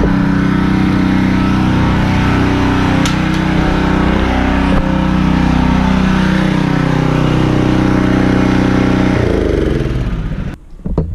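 Gas pressure washer engine running steadily, its pitch wavering slightly. Near the end it is shut off and winds down, the pitch falling until it stops.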